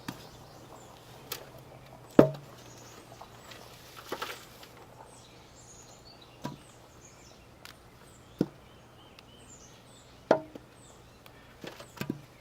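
Scattered sharp knocks and thuds of Yukon Gold potatoes being handled as they are picked out of a dumped container of soil, about ten in all, the loudest about two seconds in. Faint bird chirps are in the background.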